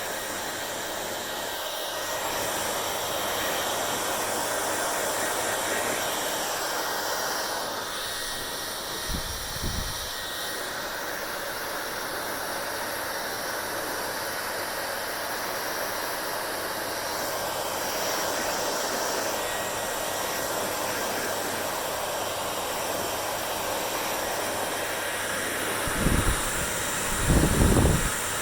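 Hair dryer blowing steadily, its rush of air shifting slightly in tone now and then. A few low bumps about ten seconds in and again near the end.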